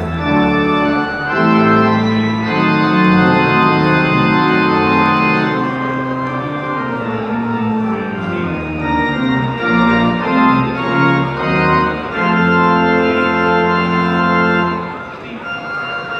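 Church organ playing the postlude after the benediction: full sustained chords over a deep pedal bass, changing every second or so and easing to a softer passage about fifteen seconds in.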